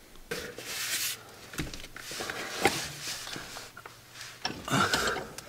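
Rustling with scattered light clicks and knocks, from hands handling tools and metal parts while working under a tractor, with a louder scuffling stretch near the end.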